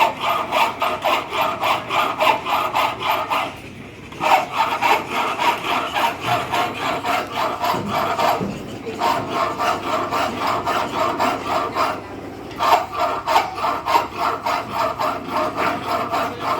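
Hand file scraping a radius onto a mild steel workpiece in rapid, even strokes, in four runs with short pauses between them.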